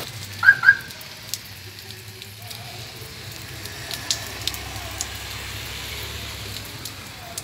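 Heavy rain falling on a wet street: a steady hiss with scattered drips and ticks. Two short, loud tones sound about half a second in. A car's low engine hum runs under the rain through the middle.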